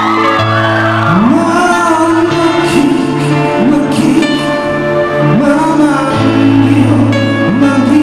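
A man singing live into a microphone over a backing band, with long held notes underneath.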